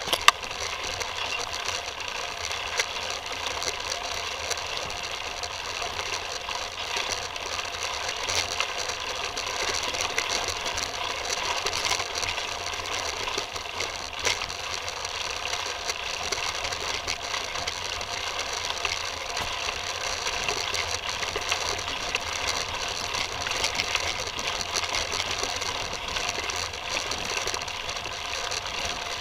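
Titus FTM mountain bike rolling over a rough forest trail: a steady clatter of chain, frame and hub rattling and clicking with every bump, picked up through the handlebar-mounted camera.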